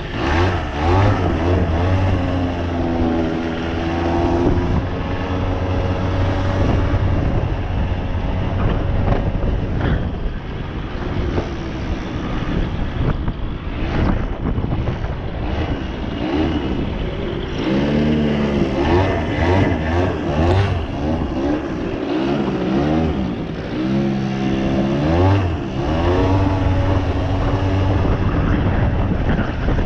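Suzuki LT80 ATV's small two-stroke single-cylinder engine running, its pitch rising and falling repeatedly as the throttle is opened and eased off while it is ridden.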